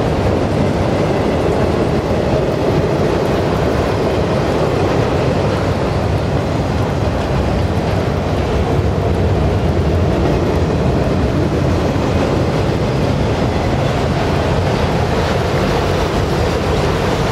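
Autorack cars of a freight train rolling past, a steady loud rumble of steel wheels on the rails.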